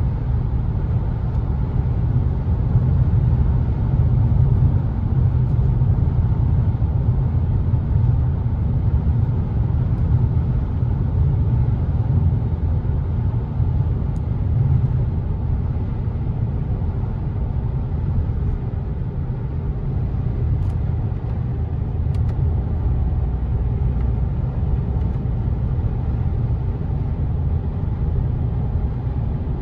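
Steady low rumble from an Audi A5's running gear at about 130 km/h: a suspect noise that the owner likens to a warped rim, though nothing comes back through the steering wheel. He wonders whether the cracked, crumbling rear brake pads could be the cause.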